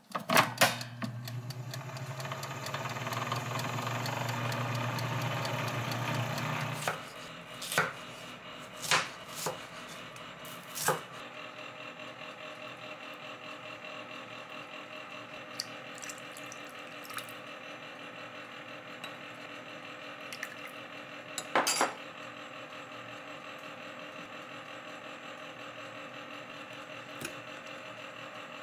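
Glass-bowl halogen convection oven: a few clicks as it is shut and set, then its fan runs with a steady hum for about seven seconds and cuts off. After that, scattered light clinks of a metal spoon and bottles against a small glass bowl.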